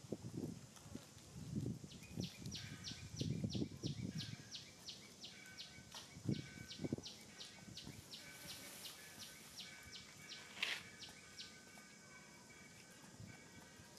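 A bird calls in the background: a rapid run of short, high, descending notes, about three a second, from about two seconds in until near the end. Soft close rustles and low thumps come mostly in the first few seconds, with a sharp click about ten seconds in.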